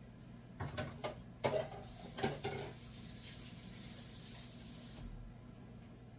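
Several knocks and clatters of the stand-mixer beater being handled at a kitchen sink. Then a tap runs for a few seconds and shuts off suddenly about five seconds in.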